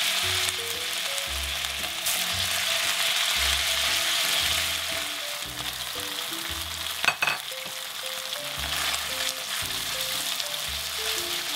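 Strips of beef sizzling in hot oil in a wok on high heat, turned with metal tongs. A single sharp metallic clink about seven seconds in.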